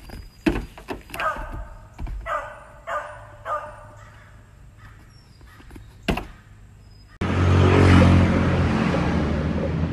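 Four short animal calls within about two and a half seconds, with a few sharp knocks around them. After a sudden change about seven seconds in comes skateboard wheels rolling on asphalt, a loud steady rumble that slowly fades.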